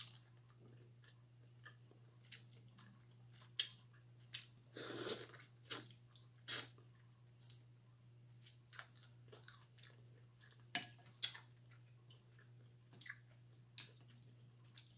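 Close-up eating sounds of mussels and shrimp in butter garlic sauce: chewing, with scattered wet smacks and clicks as shells and fingers are worked. There is a longer wet burst about five seconds in, over a faint steady hum.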